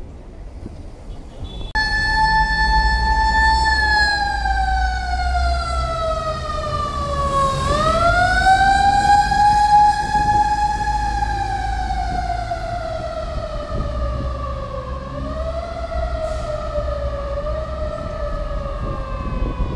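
Fire engine siren wailing as it passes: one slow wailing tone that starts suddenly about two seconds in, slides down in pitch, rises again about midway and then slowly falls, over the low rumble of street traffic.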